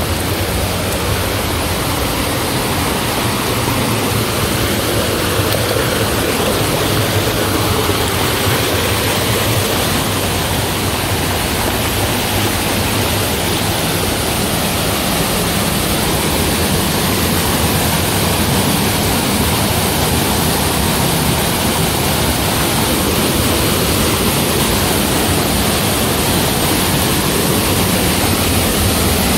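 A creek rushing over rocks and a waterfall plunging into a pool: a loud, steady rush of water.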